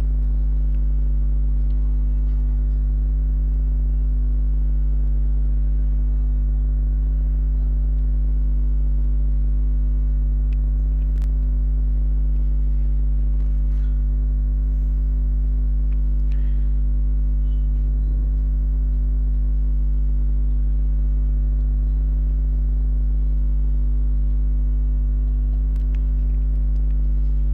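Steady electrical mains hum: a deep constant drone with a ladder of evenly spaced higher tones above it, unchanging throughout.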